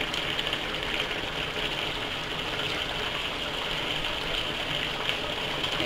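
Tomato sauce simmering in a frying pan, a steady hiss.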